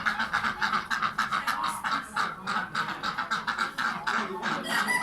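Ducks quacking in a rapid, unbroken run of short calls, about five or six a second.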